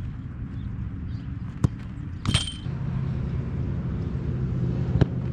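Steady low rumble of a motor vehicle engine, growing stronger a little before halfway through. Sharp knocks of a football being struck come about a second and a half in and again near the end, with a brief rattle just after two seconds.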